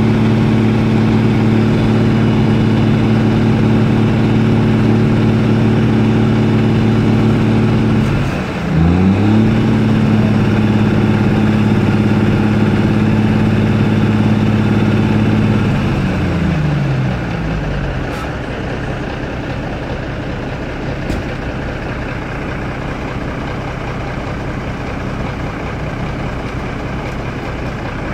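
Heavy truck diesel engine running steadily, dipping sharply in speed about eight seconds in and picking straight back up. About halfway through it winds down and stops, leaving the quieter rumble of another engine idling.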